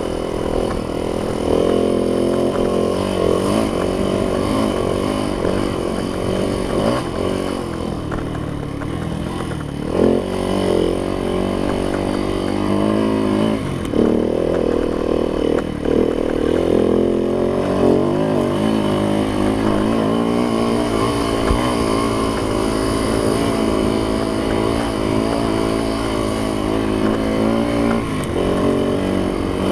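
Yamaha YZ dirt bike engine being ridden hard, its pitch rising and falling over and over as the throttle opens and closes, with a few short dips in the middle.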